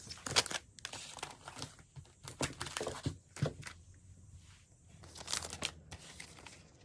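Packaging being torn open and crinkled by hand: irregular sharp crackles and rips in a few short bursts.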